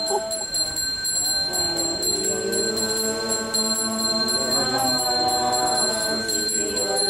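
A small bell ringing continuously with steady high tones, under a voice singing long, sliding drawn-out notes.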